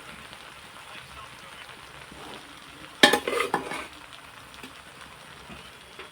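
Vegetables and rice frying in a pan with a soft, steady sizzle, stirred; about three seconds in, a loud clatter of several sharp metal strokes lasting about a second as the stirring utensil scrapes and knocks against the pan.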